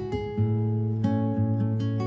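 Background music: acoustic guitar playing plucked and strummed chords over a held bass note.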